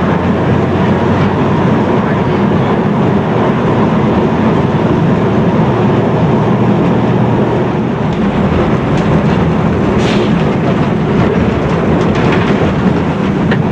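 Lisbon tram running along its street track, heard from the driver's cab: a steady rumble of motor and wheels on rail, with a few sharp clacks, the clearest about ten seconds in.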